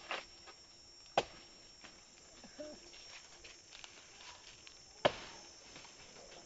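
Three sharp knocks: one at the start, one about a second in, and the loudest about five seconds in. A faint steady high-pitched tone runs underneath.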